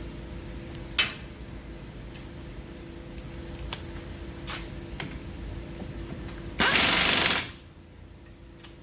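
Mechanic's tools working on a car's front hub assembly: a sharp metal click about a second in and a few lighter clicks, then a loud rattling burst lasting about a second near the end.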